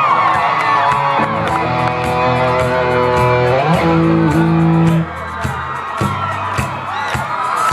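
Live band's electric guitars playing sustained chords, with a sliding note in the middle, then dropping back softer about five seconds in.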